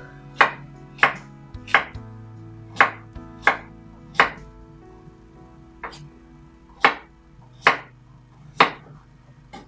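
Kitchen knife slicing a carrot on a wooden cutting board: about ten slow, separate chops, roughly one a second, with a short pause midway.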